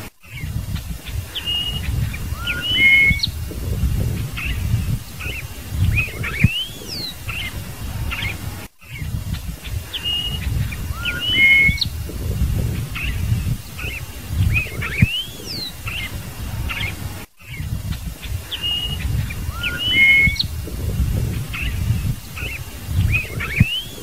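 Scarlet-headed blackbird singing: clear whistled notes and short rising and falling slurs, over a low rumble. The same stretch of song repeats about every nine seconds, each time after a brief dropout.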